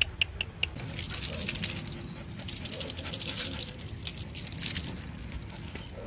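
Rottweilers moving about on a tiled yard close to the microphone: a run of quick, sharp clicks, then a dense jingling, clicking rattle lasting a few seconds.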